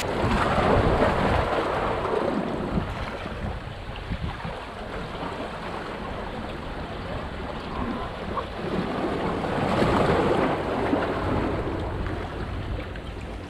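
Sea waves washing against rocks, with wind rumbling on the microphone. The wash swells louder at the start and again about ten seconds in.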